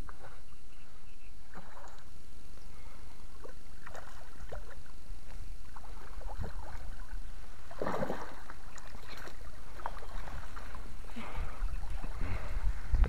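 A hooked fish splashing and thrashing at the water's surface as it is played in to the bank, with water sloshing against the concrete edge. The biggest splash comes about eight seconds in, and more follow near the end.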